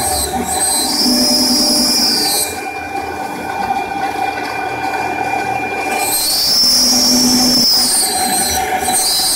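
CNC router milling a wooden sheet: a steady spindle whine under a high screech from the cutter. The screech drops away about two and a half seconds in and comes back around six seconds in.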